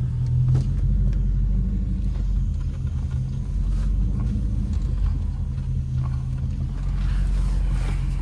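Lexus GS430's 4.3-litre V8, run without catalytic converters, running steadily at low revs with a deep, even hum.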